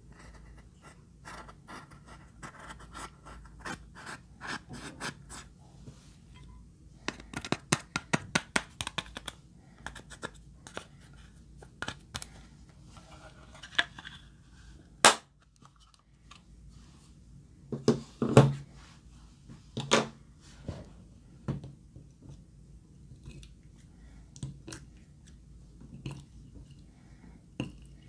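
Pressed eyeshadow being scraped and dug out of a plastic palette with a small stick: a run of sharp scratches and clicks as the shadow crumbles, with a few louder knocks.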